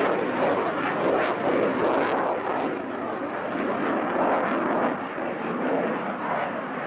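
Saab Gripen C's Volvo RM12 afterburning turbofan: a continuous, rough jet roar that swells and eases slightly over the seconds.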